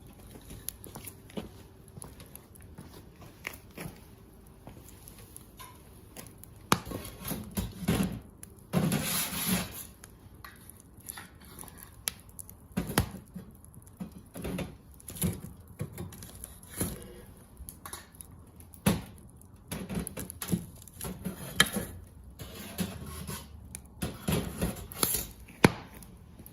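Bonfire of scrap building lumber crackling, with irregular sharp pops and snaps of varying loudness.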